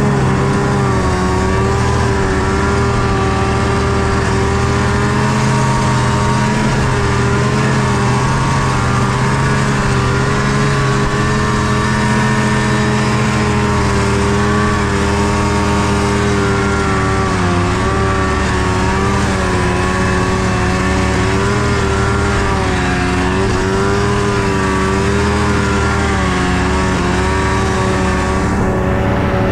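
A vehicle engine running at steady revs. It has just finished speeding up, then holds its pitch with small wavers and a brief dip about two-thirds of the way through.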